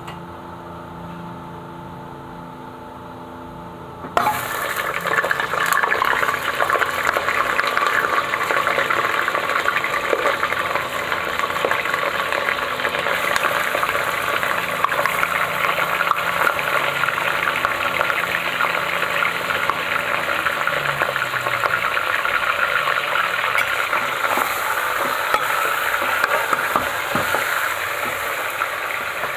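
Pieces of meat go into hot oil in an aluminium pressure cooker and start sizzling loudly all at once about four seconds in. The sizzle then runs on steadily as the meat fries and is stirred. Before that there is only a low, steady hum.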